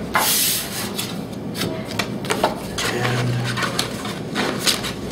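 Puzzle lamp pieces rubbing, scraping and clicking against each other as they are bent and hooked together, with a short rasping slide near the start.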